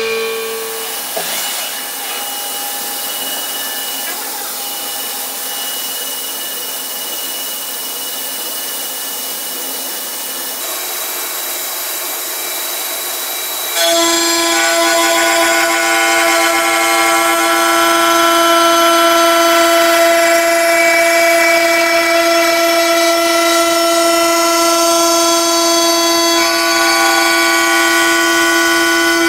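CNC milling machine cutting a cast pump housing: a steady machining whine made of several held tones. About halfway through it changes abruptly to a louder whine with a strong, lower steady tone as a 200 mm disc (T-slot) milling cutter on the spindle cuts into the casing.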